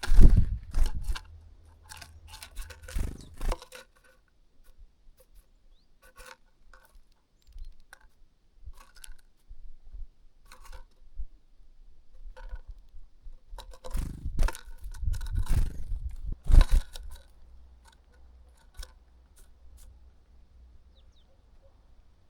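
A bird feeding close to the microphone: a run of irregular pecks, scrapes and crunches of seed-cracking. The noise comes loudest in a dense cluster at the start and again in a second cluster about two-thirds of the way through, then thins out to scattered pecks.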